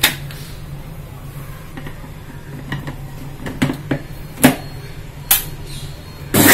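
Stainless-steel mixer grinder jar being handled: several sharp clicks and metal knocks as the lid is pressed on and the jar is seated on the mixer base. Near the end the mixer grinder's motor starts with a loud, steady whirr, grinding wet mint and tomato into a paste.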